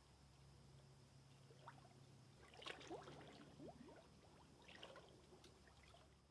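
Near silence: a low steady hum with two brief clusters of faint watery splashes, about three seconds in and again near five seconds, fading out at the very end.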